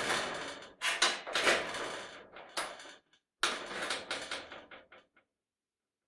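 Squeaky basement door being worked open and shut: creaking and scraping broken by several sudden knocks. It pauses briefly about three seconds in, then creaks and rattles again before dying away.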